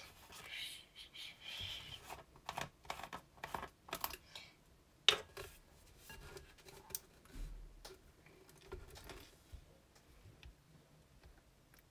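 Scattered clicks, taps and knocks of objects handled on a table and of the phone being moved, with one sharper knock about five seconds in, thinning out near the end.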